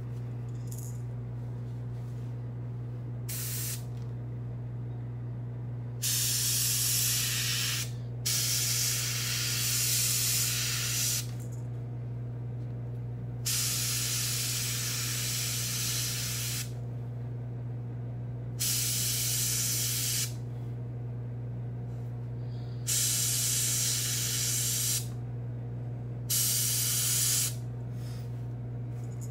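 Airbrush spraying paint in seven separate bursts of hiss, each one to three seconds long, the first a short puff about three seconds in. A steady low hum runs underneath.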